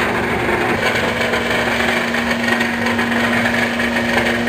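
Small rotary paddy grain dryer running steadily, a constant mechanical hum with one unchanging tone.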